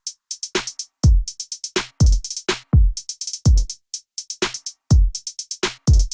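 Background music: a drum-machine beat of deep kick drums that drop in pitch, with quick high hi-hat ticks between them.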